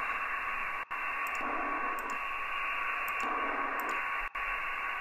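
Steady hiss cut off sharply above about 3 kHz: the noisy audio signal played through an ADAU1701 DSP noise filter. Its low end changes a few times and it cuts out for an instant twice, as the output is switched between the original and the filtered signal.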